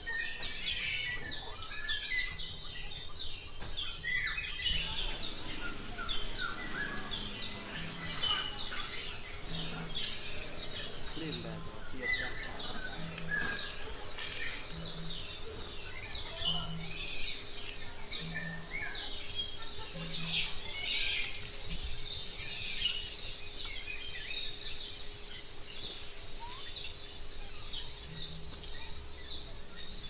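Nature ambience: a high-pitched, rapidly pulsing insect chorus runs steadily throughout, with birds chirping and twittering over it, most of all in the first half.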